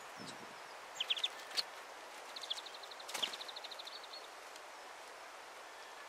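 Small songbirds calling at a seed feeder: a quick group of short high notes about a second in, then a rapid trill of evenly repeated high notes lasting about two seconds. A couple of sharp clicks fall among the calls.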